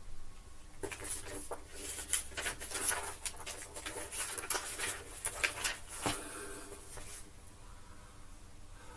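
Paper rustling with light taps and knocks as calendar pages are handled and flipped over, busiest through the middle and thinning out near the end.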